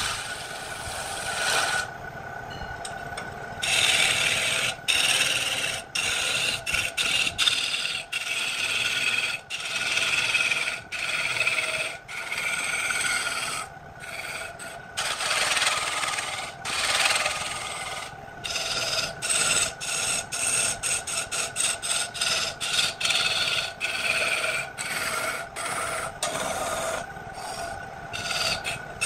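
Turning tool cutting a large spinning wood blank on a lathe: a scraping rasp as shavings tear off. The cuts come in passes of a second or two, then in quick short strokes, several a second, over roughly the last third. A steady hum from the lathe's motor runs underneath.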